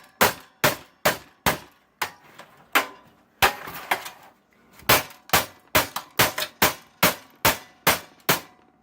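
Hammer blows on a stuck part inside a stripped-down computer, metal clanging: a string of about eighteen sharp strikes, two or three a second. The part is being knocked loose.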